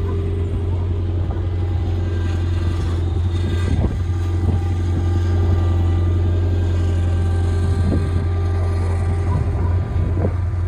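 An engine running steadily at a constant speed, with a few faint knocks in between.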